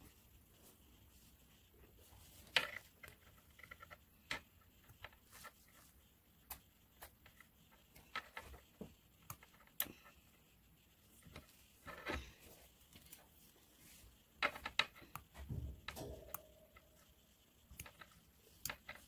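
Faint, irregular clicks and taps of hand work with tweezers and a needle, picking at strawberries laid on paper towels over a table.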